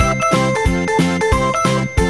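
Background music with a steady beat: plucked notes and a bright, chiming melody repeating about three times a second.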